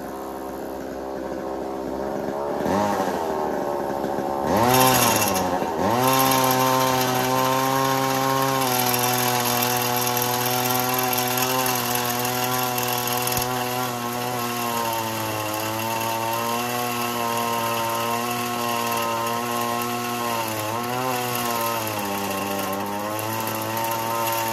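Echo CS-3000 two-stroke chainsaw engine, blipped up twice and then held at high revs as it drives a Versa Tool reciprocating-saw attachment, its metal-cutting blade sawing through steel held in a vise. The engine speed dips briefly a few times near the end under the load of the cut.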